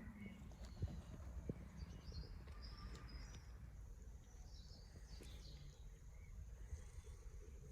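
Faint garden ambience: a steady low background rumble with a few faint bird chirps about two to three seconds in and again near five seconds.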